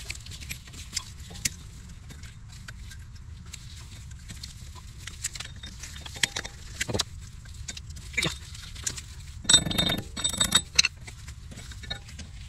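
Pliers clicking and scraping on a wheel hub's axle nut as the cotter pin is worked out, with scattered small metal clicks, then a loud burst of metallic rattling and jangling about ten seconds in.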